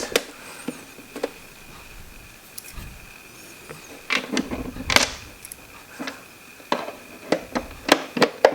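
Plastic humidifier housing being fitted back together by hand: scattered clicks and knocks of plastic parts and a hand tool, bunched about four seconds in and again near the end.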